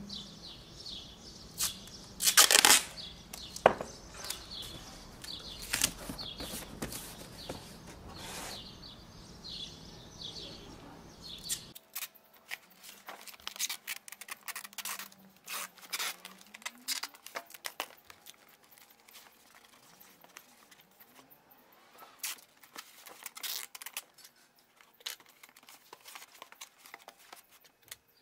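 Tape being pulled off the roll in rasping strokes and torn off, with a loud rip about two and a half seconds in, while it is stuck onto cardboard. After a sudden change in the background about twelve seconds in, a run of short sharp clicks and crackles of cardboard and tape being handled.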